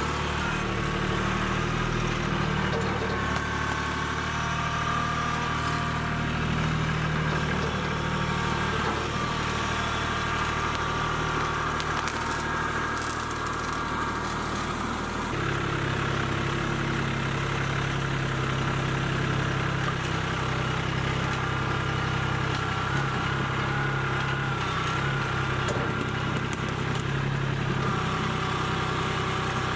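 Kubota B2261 compact tractor's three-cylinder diesel engine running steadily under load while the front loader digs. The engine note shifts about halfway through.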